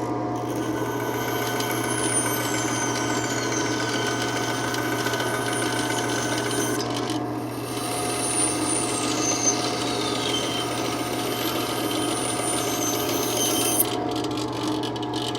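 Bandsaw running with a steady motor hum while its blade cuts wood, with a few high whines that slide down in pitch.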